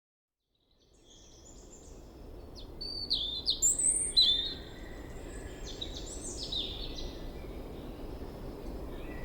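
Woodland birdsong ambience fading in about a second in: several birds chirping and calling, busiest in the first few seconds, over a steady low background hiss and rumble.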